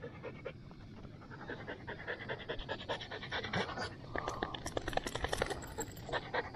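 Nova Scotia duck tolling retriever panting: quick, rhythmic breaths, getting louder about halfway through and stopping abruptly.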